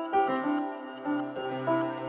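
Background music: a melody of short notes, several a second, joined by a low held bass note about a second in.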